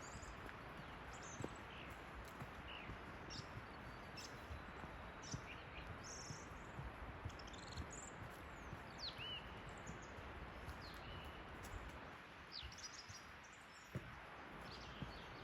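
Forest birds chirping and whistling in many short calls over a steady hiss, with soft footsteps on a forest track about once a second.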